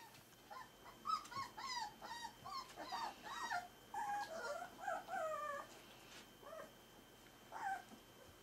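Four-week-old Pyrenean Shepherd (Berger des Pyrénées à face rase) puppy whining and yelping in a rapid series of short, high calls that bend up and down in pitch, with one more call near the end.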